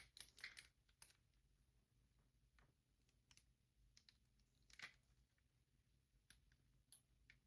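Near silence broken by a few faint, scattered small clicks and snips: scissors at work and a plastic figure being handled while tape is cut off it.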